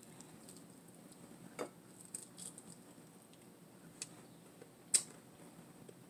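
Quiet eating by hand: a few scattered sharp clicks and smacks from mouth and fingers as meat is picked apart and chewed, the loudest about five seconds in.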